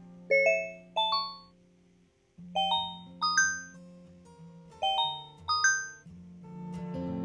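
Phonak Marvel hearing aid ringtone: pairs of bell-like chime notes, repeating about every two and a half seconds over a sustained low tone. Near the end a different tune with a strummed guitar sound starts.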